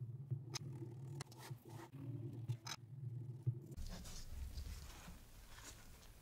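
A long knife slicing down through a sponge cake's crust onto a cutting board, a run of short scratchy cuts over a low steady hum. About two-thirds of the way in it turns into the softer rustle of gloved hands pulling the cut cake squares apart.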